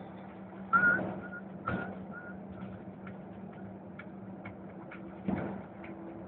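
Cab interior of a MAN TGA 410 truck under way: the six-cylinder diesel engine drones steadily. Three sharp knocks from the cab: the first and loudest comes under a second in with a brief squeak, another follows about a second later, and one comes near the end. Faint light ticks sound in between.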